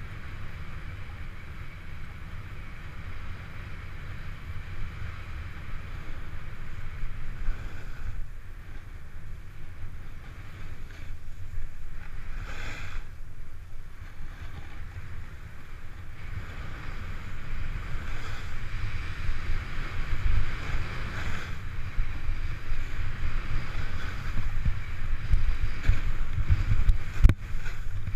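Wind buffeting a GoPro Hero 3's microphone as a snowboard slides and scrapes over snow, a steady low rumble with a hissing scrape, growing louder in the last third, with a couple of brief knocks.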